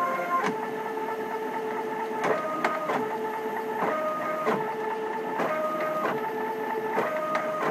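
Stepper motors of a DIY CNC machine working as a pen plotter, whining in steady tones. The pitch jumps to a new note with a short click each time the pen changes direction on a zigzag line, roughly every half second to second and a half.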